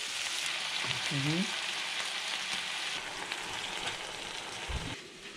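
Fish cake strips and chopped green onion sizzling in a hot nonstick frying pan while being stirred and turned with tongs, with a short low thump near the end.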